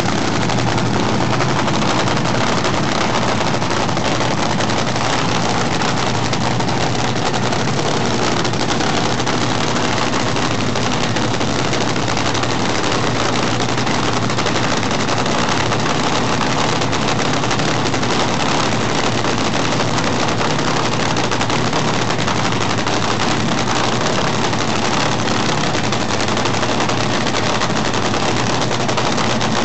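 Top Fuel dragster's supercharged nitromethane-burning Hemi V8 idling during a pit warm-up, very loud and steady, with no revving.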